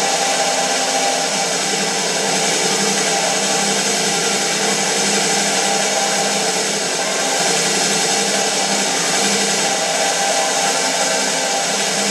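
A loud, steady whirring hiss like a small electric motor running, such as a power tool or hair dryer, with a faint low hum under it.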